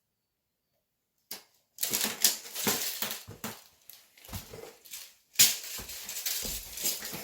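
Close, irregular tapping, clicking and rustling handling noise that starts suddenly about a second in, after total silence.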